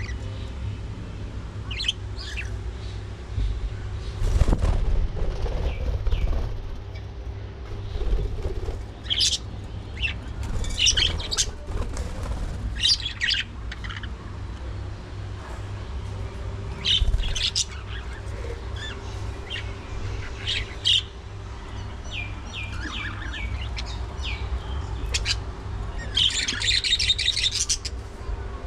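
Budgerigars chirping in short, scattered calls, rising to a dense burst of chatter near the end, over a steady low rumble and a faint hum.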